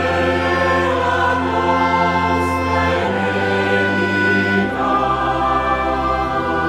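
Background choral music: a choir singing sustained chords over a steady low bass, moving to a new chord every second or two.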